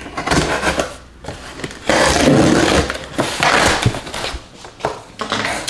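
Box cutter slicing the packing tape on a cardboard shipping box and the flaps being pulled open: several scraping, tearing bursts, the loudest about two seconds in.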